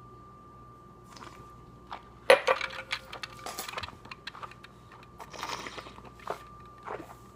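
A wine glass set down with a sharp clink about two seconds in, ringing briefly. Then small wet clicks and smacks of a mouthful of dry honey wine being worked around the mouth, with a breathy rush of air about five seconds in.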